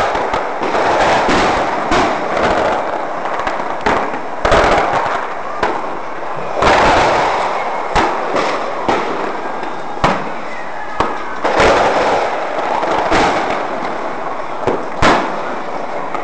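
Fireworks going off nonstop: a continuous crackling din broken by many sharp bangs, several of them louder booms.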